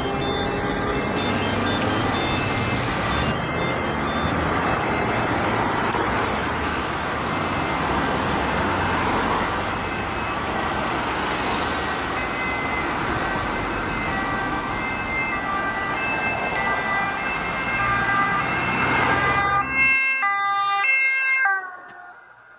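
A fire service van's emergency siren sounding over the noise of passing road traffic. Near the end it comes through clearly as tones switching back and forth before breaking off.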